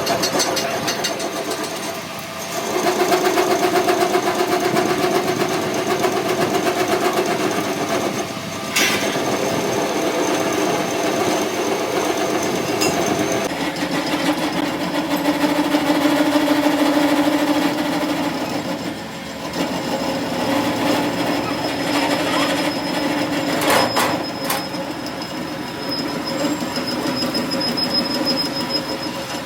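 A workshop machine running steadily with a droning, squealing tone that shifts pitch a few times. There are a few sharp metallic clicks about nine seconds in and twice near twenty-four seconds.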